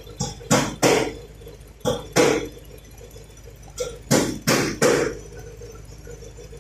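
Sharp knocks, nine in all, in quick bunches of three, two and four, a third of a second or so apart, over a steady low hum.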